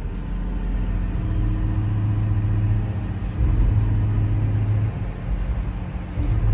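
John Deere 210G LC excavator's diesel engine running with its hydraulics engaged, a steady low hum that grows louder about a second in and swells again partway through as the machine takes load.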